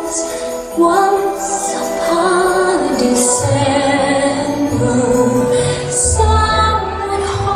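Music playing: a slow song with a female singing voice, with a low bass coming in about halfway through.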